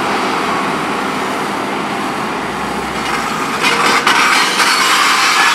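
Volvo EC 700B HR high-reach demolition excavator's diesel engine and hydraulics running steadily, getting louder and harsher about three and a half seconds in, with a single sharp knock just after.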